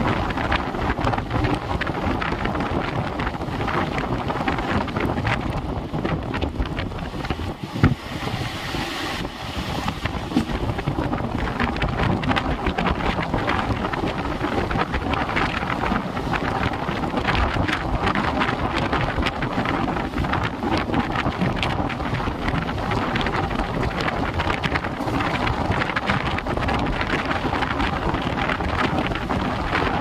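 Moving passenger train heard from outside the coach: wind buffeting the microphone over the steady rumble and clatter of the wheels on the rails, with one sharper knock about eight seconds in.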